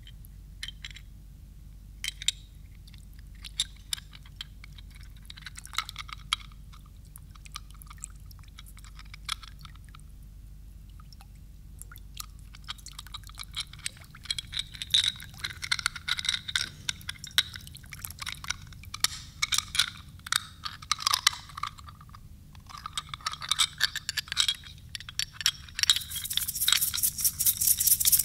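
Sparse small clicks and clinks of hand percussion, becoming denser and ringing from about halfway, then building into a steady shaker rattle near the end.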